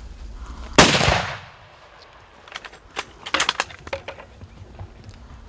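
A single .416 Rigby rifle shot, one loud crack about a second in that dies away over half a second. A few short sharp clicks follow a couple of seconds later.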